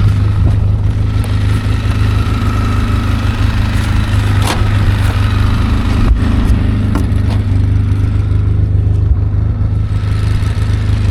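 ATV engine running at a steady speed, with a few sharp knocks and rattles about four and six seconds in.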